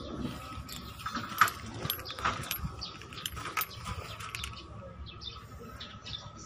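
Small birds chirping, with a faint steady tone and a few sharp clicks, the loudest about one and a half seconds in.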